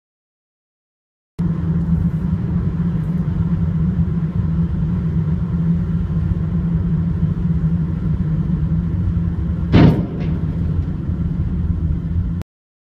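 Steady road and engine rumble heard from inside a moving car. About ten seconds in, a short, loud bang as a truck's raised tipper body strikes a motorway overpass, followed by a smaller knock.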